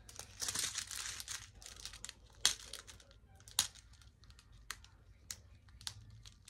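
Plastic packaging crinkling as it is handled: dense crackling for the first second and a half, then scattered sharp separate clicks and ticks.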